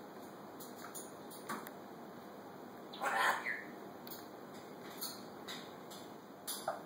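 Timneh African grey parrot making a short harsh squawk about three seconds in and a brief whistled note near the end, with faint clicks in between.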